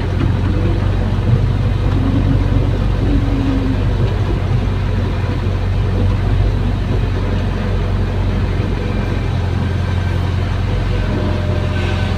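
Hydraulic excavator's diesel engine running steadily, heard from inside the operator's cab as the bucket digs into and lifts sandy soil.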